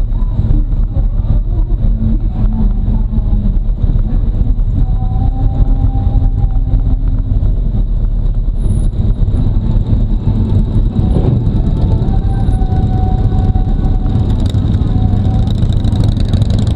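Harley-Davidson Road Glide Ultra's V-twin engine running under way, a steady low rumble that holds at the same level throughout.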